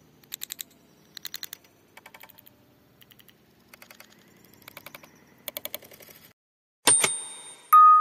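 Quick runs of four or five sharp taps, repeating about once a second: common mynas pecking food flakes off a stone slab. Near the end a loud, bright chime rings out and a glockenspiel-like music tune starts.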